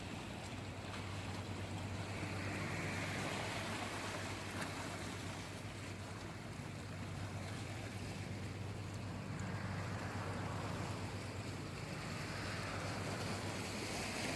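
Calm sea waves washing in slow swells, over a steady low hum.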